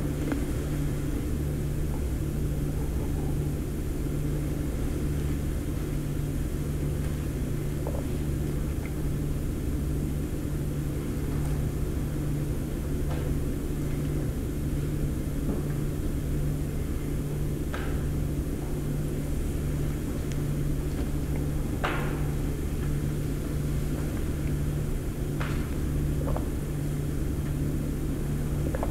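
Steady low hum with a rumble beneath it, unbroken throughout, with a handful of faint clicks and light knocks, the clearest about 22 seconds in.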